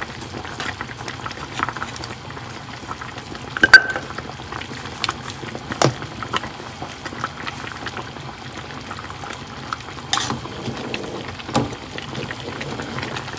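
A pot of bulalo beef-shank soup boiling with a steady bubbling, and now and then a utensil clinking against the pot as bones are lifted out. The loudest clink, about four seconds in, rings briefly.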